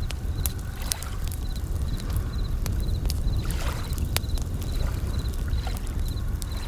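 Campfire crackling with scattered sharp pops, over a steady low rumble of waves, while bell crickets chirp in short high trills repeating about twice a second.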